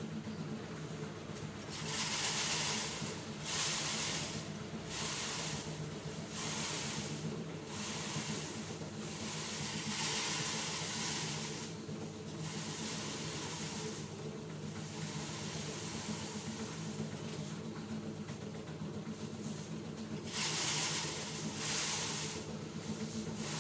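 A steady low engine hum with repeated rustling swishes over it, roughly one every second or two.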